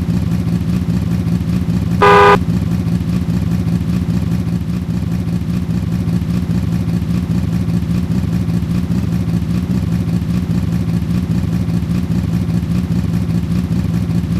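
Vehicle engine running steadily, with one short, loud horn beep about two seconds in.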